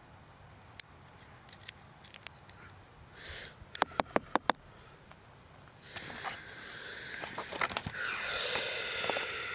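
Small sharp clicks of .22 rimfire cartridges being pressed one by one into the rifle's detachable box magazine, with a quick run of about six clicks near the middle. In the last few seconds come rustling handling noises mixed with more clicks.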